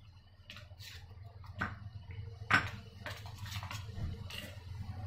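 Metal spoon scraping and clinking against a stainless steel pan while stirring grated coconut into sticky jaggery syrup: a string of light clinks and scrapes, with one sharper knock about two and a half seconds in.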